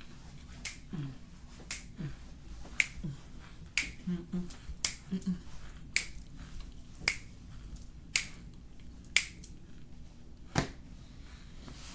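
Crunching of oven-baked cornstarch chewed close to the mouth, as a series of crisp, sharp crunches about once a second, with brief faint hums between them.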